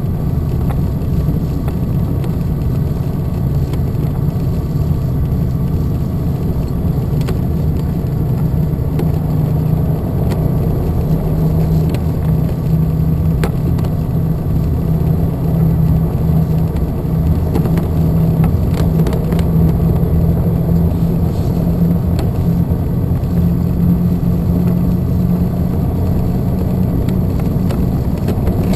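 Piston engine and propeller of a TL-Ultralight Sting light aircraft running at taxi power, heard from inside the cockpit: a steady drone that rises slightly in pitch about eleven seconds in.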